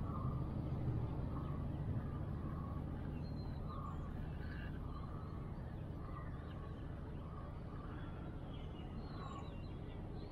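Birds chirping and calling, short repeated notes, over a steady low rumble.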